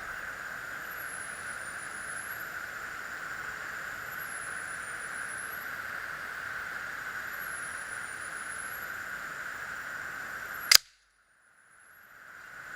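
A single shot from an Air Venturi AV-46M single-stroke pneumatic match air pistol: one sharp crack near the end, over a steady background hiss. Right after the shot the sound drops out almost completely for about a second, then the hiss fades back in.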